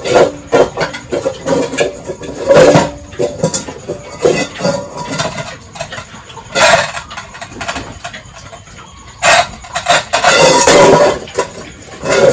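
Pigs squealing and grunting at feeding, in short loud bursts; the longest squeals come near the middle and again about two-thirds of the way in.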